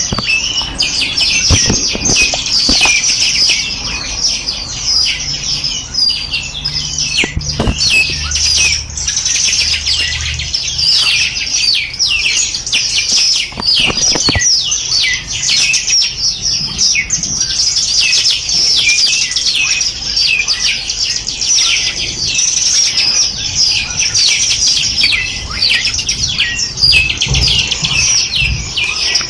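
Dense chorus of many small songbirds, rapid high chirps and twittering trills overlapping without a break, with a few brief knocks.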